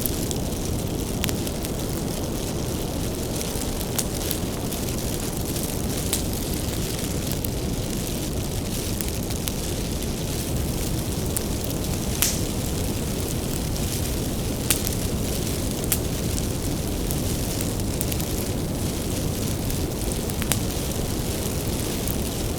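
Bonfire of firewood burning: a steady low rumble of flames with sharp, irregular wood crackles and pops.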